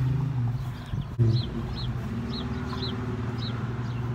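Small birds chirping, short high chirps repeated two or three times a second, over a steady low hum; a short thump about a second in.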